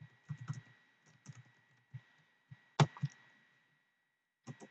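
Computer keyboard keys tapped in short, irregular runs while typing, with one louder keystroke a little before three seconds in.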